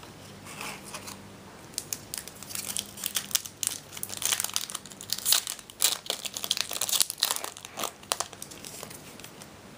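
Foil wrapper of a Yu-Gi-Oh! booster pack crinkling and tearing as it is pulled open by hand, a run of irregular crackles starting about two seconds in.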